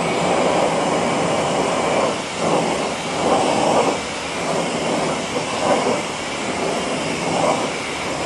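Car-wash pressure-washer lance spraying a jet of water onto a motorcycle's front wheel and the wet concrete, a steady hiss that swells and dips. The water pressure is weak, which the rider remarks on.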